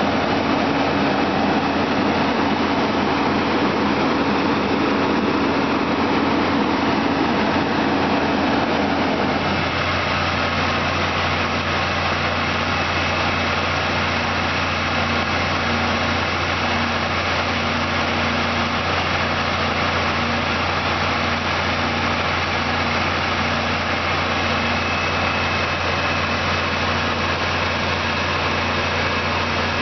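Western Star water truck's diesel engine running steadily to drive its water pump while the roof-mounted water cannon sprays. The engine's note changes about nine or ten seconds in and then holds steady.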